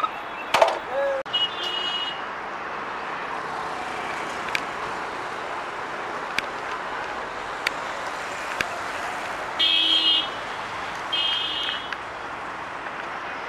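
Steady hiss of distant expressway traffic, trucks and buses climbing a ghat road, with short high-pitched vehicle horn toots: one about a second and a half in, and two more about three-quarters of the way through.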